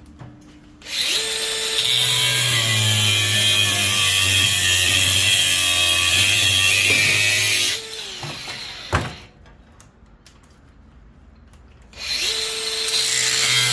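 Angle grinder cutting through a fan motor's casing. It spins up about a second in, cuts steadily for about six seconds, winds down with a falling tone, then starts up again near the end after a few seconds of quiet.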